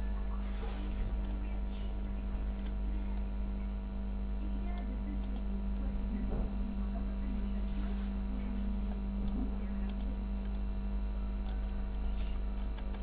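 Steady electrical mains hum: a low buzz with many fixed tones above it, and a few faint clicks.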